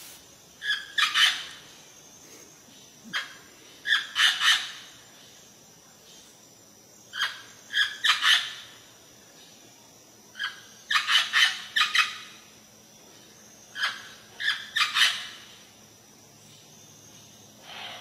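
Parrot calling: short, harsh squawks in clusters of two to six, with a new cluster every three to four seconds.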